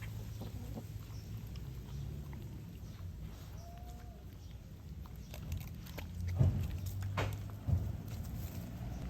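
A dog eating: wet chewing and lapping clicks, with a short faint whine near the middle and two louder knocks past the middle.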